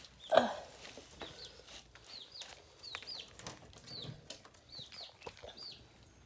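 Chicken calling: about ten short, high peeps that fall in pitch, often in quick pairs, with a few light clicks between them.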